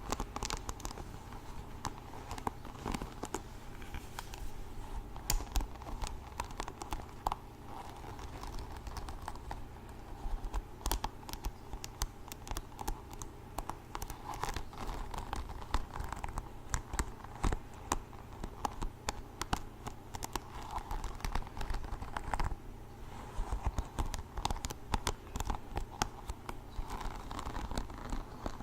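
Close-miked ASMR handling sounds: a dense, irregular run of crinkling, scratching and small clicks as objects are handled or rubbed.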